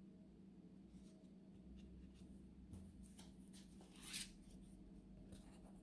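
Near silence with faint handling noise from a black phone case being turned over in the hands: scattered soft clicks and taps, and a brief rub about four seconds in.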